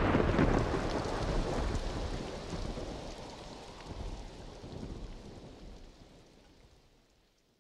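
A low rumbling noise that swells a few times and fades out over about six seconds once the music stops.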